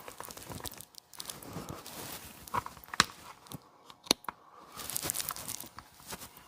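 Irregular scraping and rubbing of a rubber intake boot and grommet being worked through a chainsaw's plastic housing with a blunt pry tool, with two sharp clicks about three and four seconds in.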